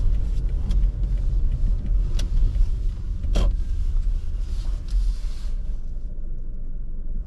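Car cabin rumble as the car rolls slowly, with a few scattered clicks and a light tyre hiss. The hiss fades near the end as the car comes to a stop.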